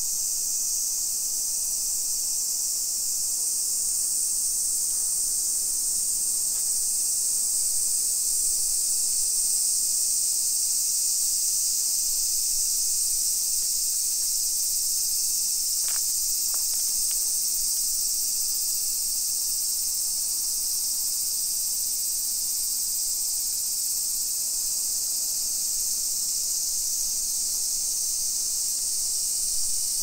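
A chorus of summer cicadas droning steadily in the trees: an unbroken, high-pitched buzz. Two faint ticks come about halfway through.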